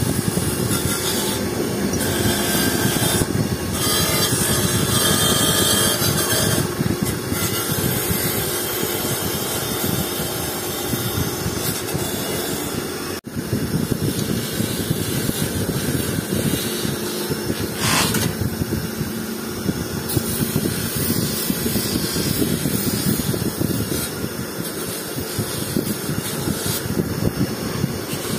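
Motor-driven wire-wheel brush spinning against a Honda 70 motorcycle engine's aluminium crankcase, scrubbing off old paint and rust: a steady whirring scrape, with a momentary break about 13 seconds in.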